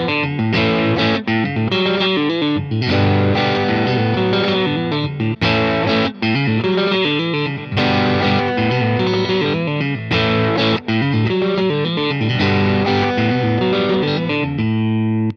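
A Strat-style electric guitar with single-coil pickups played through an amplifier: a continuous passage of notes and chords changing every fraction of a second, with only brief breaks between phrases.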